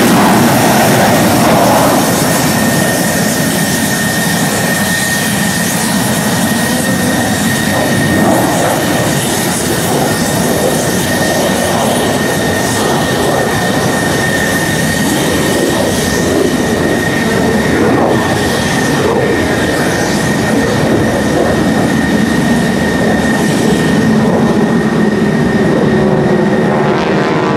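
Jet engines of Navy fighters, an F-14 Tomcat and F/A-18 Hornets, running at taxi power: a loud, steady roar with a steady high whine over it.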